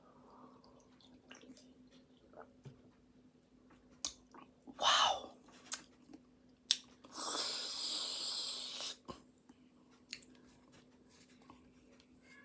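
Close-up chewing of pastry: soft mouth clicks and smacks, with a short breathy noise about five seconds in and a louder hissing noise lasting about two seconds a little later. A faint steady hum sits underneath.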